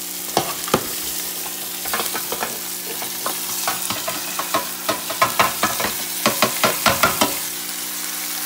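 Seared oxtails and chopped green onions sizzling as they are tipped off a metal sheet pan into a hot stainless stockpot. A quick run of knocks and clatters from the pan, the pot and the meat comes in the second half.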